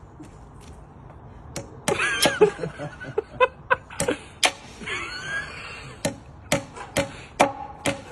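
Claw hammer knocking against a nail in a timber post, swung by thrusts of the hips: a series of sharp knocks at uneven intervals, starting about two seconds in, with brief laughing between them.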